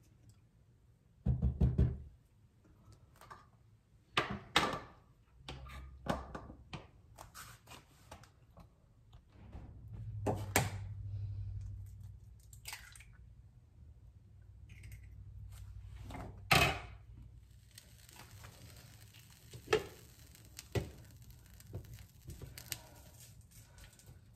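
Kitchen utensils and pans knocking on a glass stovetop, and an egg cracked against a nonstick frying pan, as a string of sharp knocks and thunks. After a sharp knock about two-thirds in, a steady faint hiss sets in: the egg frying in the pan.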